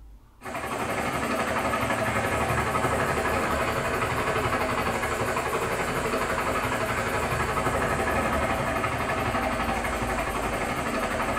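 Helicopter rotor and engine sound from the Dolby Atmos Helicopter Demo, starting abruptly about half a second in and then running steadily and loudly.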